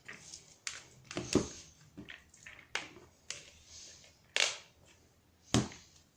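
Kitchen handling as half-cooked rice is added to minced pork and chicken in a bowl: irregular knocks and short scrapes of a utensil against the bowl, with soft squishing of the mince, three sharper knocks standing out.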